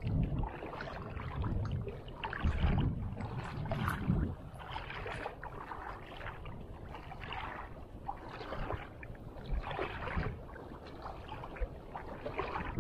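Wind gusting against the microphone, strongest in the first few seconds, over small waves splashing and lapping in shallow water.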